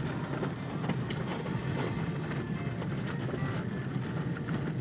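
Car driving slowly on a gravel lane, heard from inside the cabin: a steady low engine and tyre rumble with scattered clicks.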